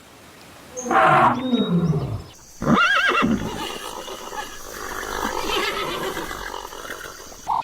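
An animal calling: a pitched call about a second in, a second wavering call about three seconds in, then a lower, rougher drawn-out sound.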